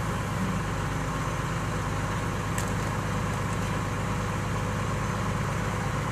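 Excavator's diesel engine running steadily at an unchanging speed, with a fast even pulse. A brief faint click about two and a half seconds in.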